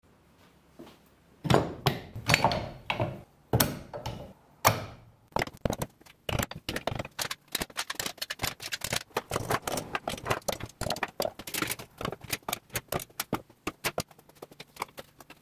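Metal clamps being set into the slots of a plywood clamp rack: a few loud, separate clunks, then a fast, irregular run of clicks and rattles as more clamps go in.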